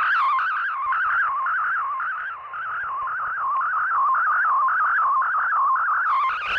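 Shortwave digital-mode data transmission received on a software-defined radio: a rapidly warbling tone hopping between about 1 and 1.6 kHz over band hiss. Near the end more tones spread higher up for a moment.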